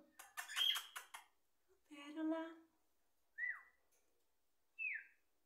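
Two short falling whistles, each under half a second and a second and a half apart: a person whistling to call a pet budgerigar. Before them come a brief burst of clicking noise and a woman calling the bird's name.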